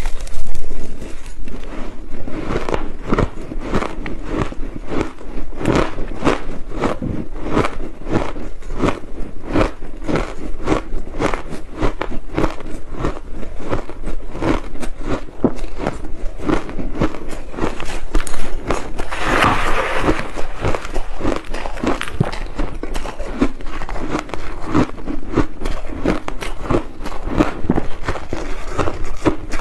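Close-miked biting and chewing of coloured crushed ice, a rapid steady run of crisp crunches. About two-thirds through comes a brief louder rustle.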